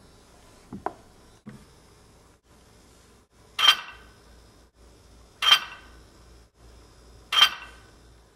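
Three sharp clinks about two seconds apart, each ringing briefly, after two faint knocks about a second in.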